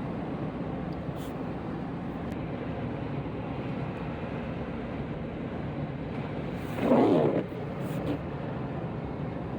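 Steady road and tyre noise heard from inside a moving car, with a brief louder burst about seven seconds in.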